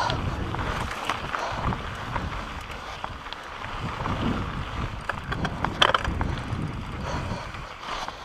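Mountain bike descending a rocky dirt trail at speed: wind rushing over the microphone, tyres crunching on dirt and loose stones, and the bike rattling and clicking over bumps. A sharp clatter comes about six seconds in, and it goes quieter near the end.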